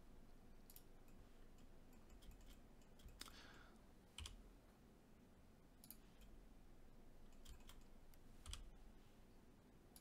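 Faint, scattered clicks of a computer keyboard and mouse over near silence.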